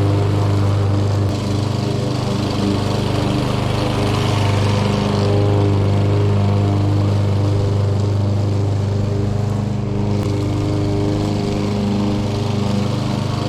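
Craftsman gas lawn mower engine running steadily at a constant speed while mowing over dead leaves.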